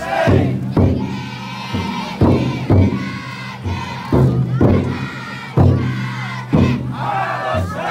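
The big taiko drum inside a futon daiko festival float is beaten in strong strokes, about one and a half a second and often in pairs, each leaving a deep ringing tone. The crowd of float bearers chants and shouts in unison over it.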